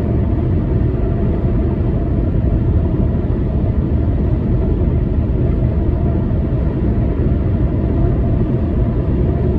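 Steady road and engine rumble heard inside the cabin of a moving car, an even low drone with no breaks or changes.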